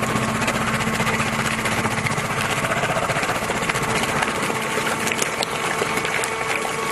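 Hydraulic baling machine running steadily, a dense machine hum with a few steady tones and faint ticking.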